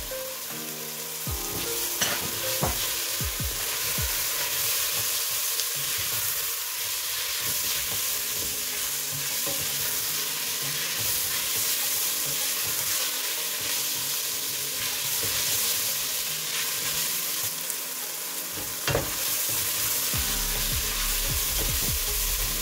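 Chopped spring onions sizzling in hot oil in a metal pot, stirred with a wooden spoon. There is a steady hiss, with a few sharp knocks of the spoon about two seconds in and again near the end.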